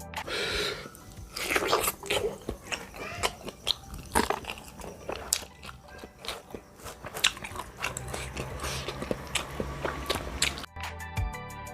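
Close-miked eating of bakso meatballs: wet biting, chewing and smacking clicks, with a few longer wet smears. Background music comes back in near the end.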